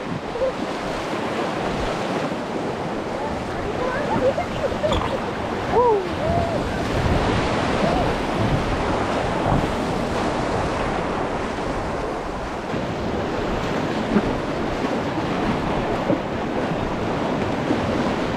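Rushing river water through whitewater rapids: a steady, noisy wash, with wind buffeting the microphone.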